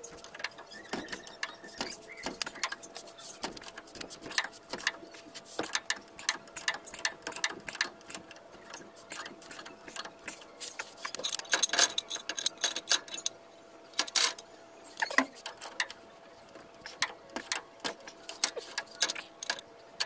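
Metal hand tools clicking and clinking under the van, in irregular runs of rapid clicks, loudest a little past halfway.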